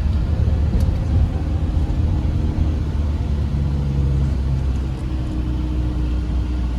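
Steady low rumble of a motor vehicle running, with a faint steady hum above it.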